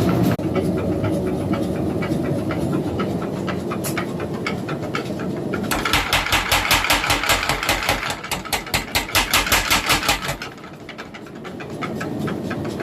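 Little Giant mechanical power hammer running with a light, fast rhythmic stroking, then about six seconds in hammering hard in quick, even blows, about four a second, as it forges the distal taper into small knife blades. The blows let up briefly near the end and then start again.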